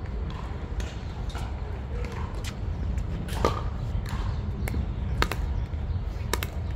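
Pickleball paddles popping against the plastic ball and the ball bouncing on the hard court: sharp single clicks at irregular intervals, the loudest about three and a half seconds in, over a steady low rumble.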